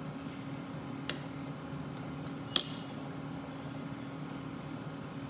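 Two sharp clinks of a metal spoon against a ceramic serving bowl, about a second and two and a half seconds in, over a steady low hum.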